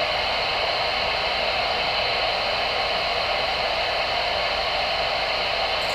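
Steady hiss of static from a Voyage CB base radio's speaker, with no station transmitting.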